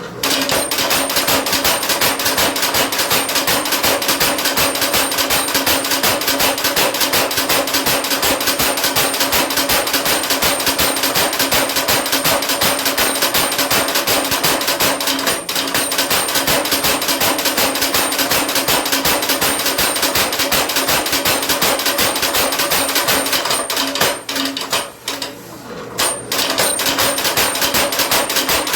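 Mechanical power hammer striking a hot railroad spike in rapid, steady blows, stopping briefly about 24 seconds in and then starting again.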